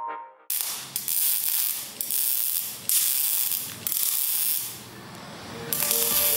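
A hand tool working metal: six rough, rasping strokes about a second apart, with a longer gap before the last one.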